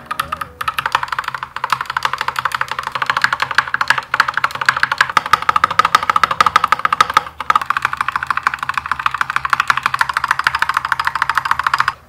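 Fast, continuous typing on an Akko mechanical keyboard: a rapid, even stream of key clacks with a few brief pauses, stopping suddenly at the end. Soft background music runs underneath.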